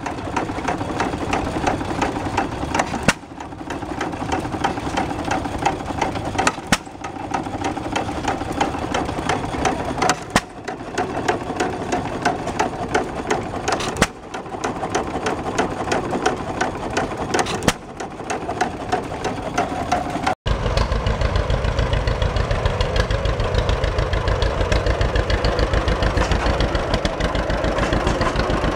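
Antique hit-and-miss stationary engine running, with a sharp bang roughly every three and a half seconds and a fast ticking in between. About twenty seconds in, the sound changes to a John Deere two-cylinder tractor engine running close by with a louder, steady, low rhythmic beat.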